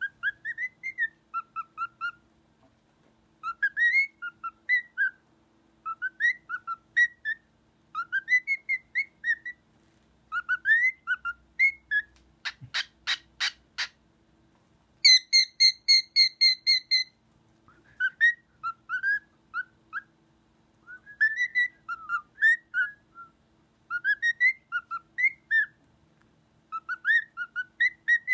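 Cockatiel whistling: repeated phrases of short rising and falling whistled notes, a new phrase every couple of seconds. About halfway through comes a brief run of rapid clicks, then a couple of seconds of fast repeated shrill notes, before the whistled phrases resume.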